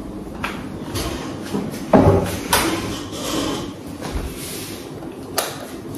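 A few knocks and clicks of a door being handled and opened, the loudest about two seconds in.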